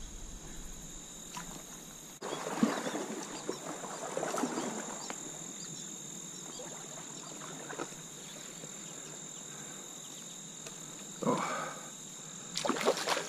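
Steady high-pitched trilling of insects, crickets or similar, holding two even pitches. A stretch of scuffing, handling noise comes about two seconds in, with short louder bursts near the end.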